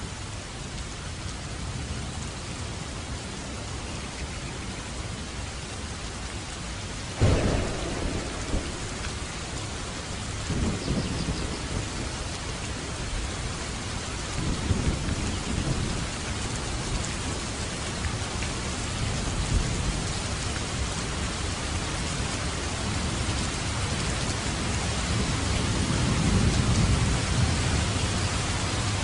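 Steady rain with a sudden clap of thunder about seven seconds in, followed by several rolls of low rumbling thunder; the rain grows gradually louder toward the end.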